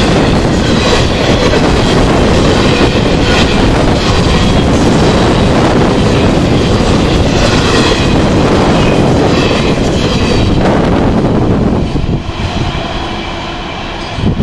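Intermodal freight train of trailers on flatcars rolling past at speed, a loud steady rumble with the wheels clacking over rail joints. About twelve seconds in, the last car passes and the noise falls away as the train recedes.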